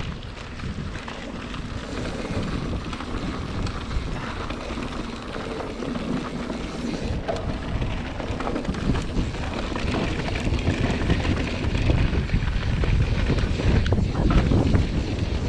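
Wind buffeting a bike-mounted camera's microphone over the rattle and crunch of mountain bike tyres on loose gravel during a downhill run, getting louder toward the end as speed builds.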